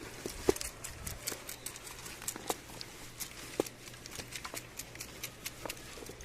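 Farm animals eating corn: many irregular light ticks and taps of kernels being picked up, with a few louder knocks.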